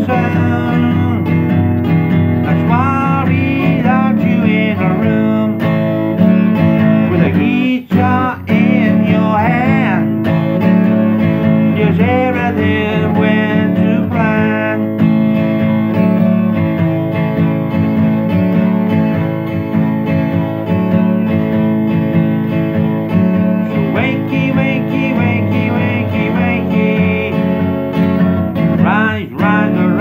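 Acoustic guitar strummed and picked in a steady blues accompaniment, an instrumental stretch of the song.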